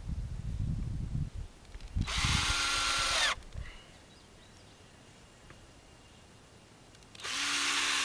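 Cordless drill driving screws into a treated-wood gate post to fasten the gate hinges: two bursts of about a second each, about five seconds apart, the motor's whine rising in pitch during each. A low rumble comes before the first burst.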